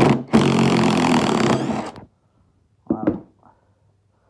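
Ferm cordless impact driver hammering as it backs a large screw out of a log. A short burst comes first, then about a second and a half of continuous rapid impacts, which stop suddenly.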